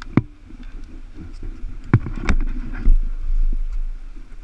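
A few sharp knocks and clatters with a low rumble of wind on the microphone: the first knock comes just after the start, and a cluster follows around the middle.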